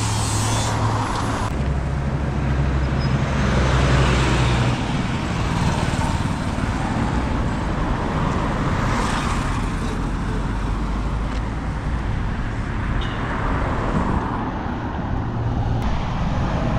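Road traffic: motor vehicles running and passing, a steady mix of engine hum and tyre noise that swells and fades.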